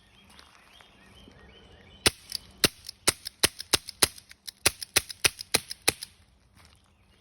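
Air gun fired in a quick string of about fifteen sharp shots over some four seconds, several a second, starting about two seconds in.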